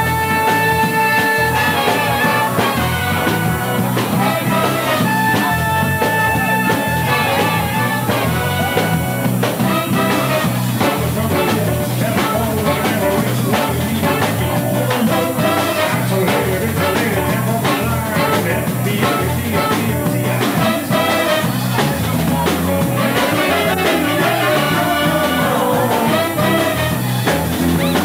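Live big band with a horn section of trumpets, trombone and saxophones playing an upbeat jazzy number. Held horn chords sound near the start and again about five seconds in, then a busier stretch of quickly moving notes, with a tenor saxophone being played.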